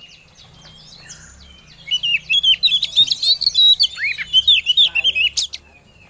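Oriental magpie-robin (kacer) calls: soft scattered chirps, then from about two seconds in a loud, fast run of varied chirps and whistled notes that stops shortly before the end. This is a female's call to a male, the kind played to rouse a male kacer into answering and singing.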